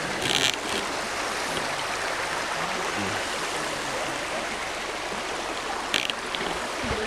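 Steady rush of a creek and its waterfall, with two short sharp sounds, one just after the start and one about six seconds in.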